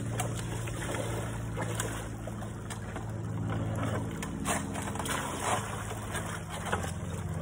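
A steady low hum runs throughout, with irregular water splashes and sloshing as a plastic bucket is dipped and scooped in a shallow creek.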